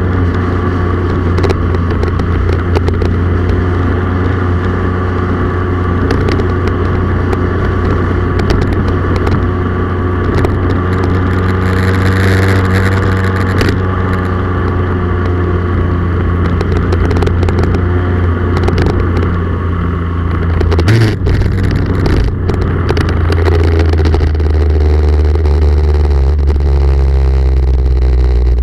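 Vehicle engine running at a steady cruise with road and wind noise, heard from a camera mounted on the moving vehicle. The engine note shifts about three quarters of the way through, then settles again.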